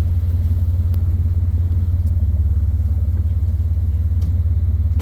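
Whale-watching tour boat's engine running steadily, a deep, even drone heard on board.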